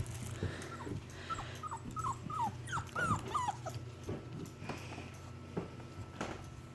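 Australian Shepherd puppies whimpering: about ten short, high, falling whines close together, starting about a second in, then a few soft knocks.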